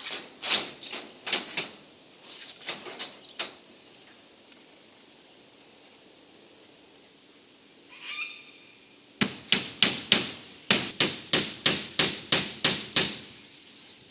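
Two runs of sharp knocks: a scattered group at the start, then a fast, regular series of about three strikes a second in the second half. A short chirping call comes just before the second run.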